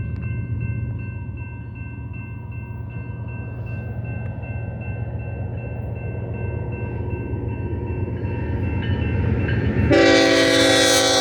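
A string of BNSF diesel locomotives, led by a GE ES44C4, rumbling steadily as they approach, slowly growing louder. About ten seconds in, the lead locomotive's multi-chime air horn starts to blow, much louder than the rumble.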